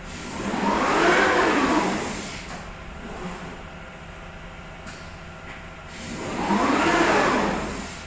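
Drive motors of a CNC glass-cutting table whining as the cutting head speeds up and slows down, the pitch rising and then falling, twice: about half a second in and again about six seconds in, over a steady low hum.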